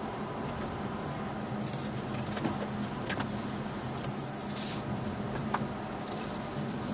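2007 Subaru Forester's flat-four engine and tyres running steadily on a snowy track, heard from inside the cabin as a constant hum. A few sharp clicks break through, and there is a brief hiss about four seconds in.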